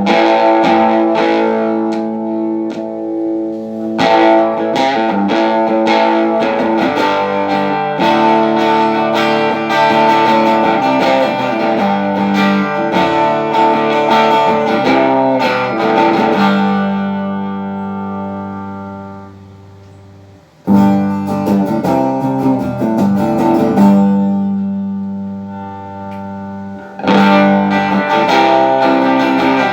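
Electric guitar played through a Kay 703 small tube amp after a full rebuild: strummed chords, twice left to ring out and fade before the playing starts again.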